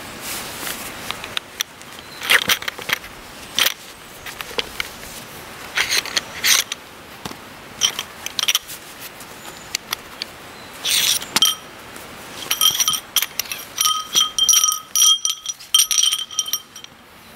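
Short metal tent-pole sections knocking and clinking together as they are handled, ringing briefly after the sharper hits in the second half. Before that, rustling and scraping of the canvas tent being moved.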